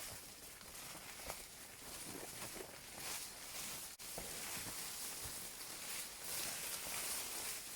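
A hiker's footsteps on a mountain trail, irregular soft thuds, over a steady high hiss.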